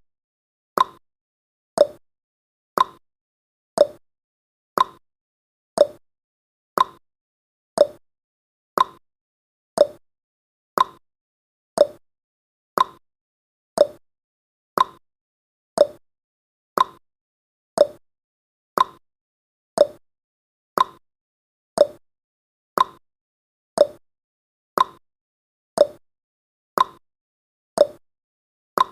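Clock-tick sound effect of a countdown timer, one sharp tick each second, steady and even.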